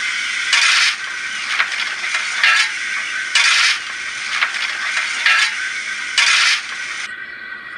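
Coal-shovelling sound effect from the model steam locomotive's DCC sound decoder, played through its small speaker: repeated scraping, rattling shovel strokes, the loudest about every three seconds, stopping near the end.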